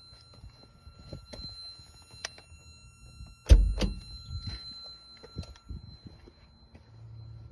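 Scattered light clicks and handling knocks, with one loud, low thump about three and a half seconds in and a smaller one right after it.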